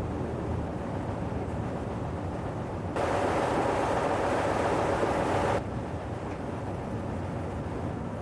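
Walker diesel rail motor running steadily, with a louder stretch in the middle of a few seconds that starts and stops abruptly.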